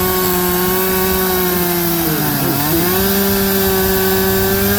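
Chainsaw engine running at high speed in a homemade chainsaw mill, cutting a walnut log. About two seconds in its pitch sags sharply, then it picks back up to speed. The saw is one the onlooker calls temperamental.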